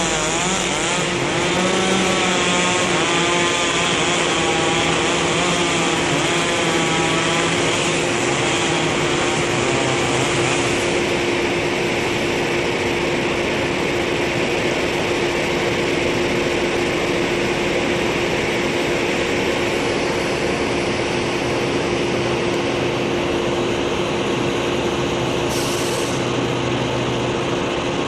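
Tree-removal machinery running steadily and loudly with a constant hum. For the first several seconds a chainsaw is heard cutting, its pitch wavering up and down, before it blends into the steady engine drone.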